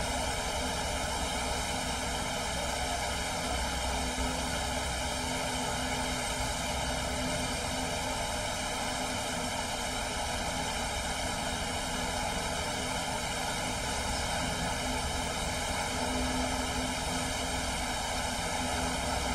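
Steady, even hiss at a constant level, with no distinct events.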